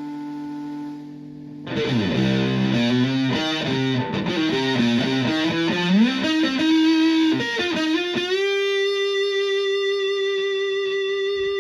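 Electric guitar played through a modified Violet Ram's Head Big Muff fuzz pedal. A held chord fades out, then about two seconds in a quick lead phrase with bent and sliding notes follows, ending about eight seconds in on one long sustained fuzzed note.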